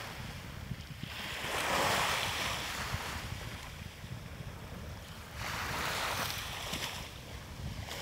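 Small waves breaking and washing up a sandy beach, the surf swelling twice, with a low wind rumble on the microphone underneath.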